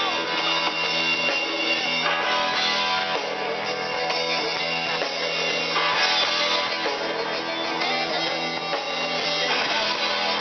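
Live rock band playing, with electric guitar and a drum kit.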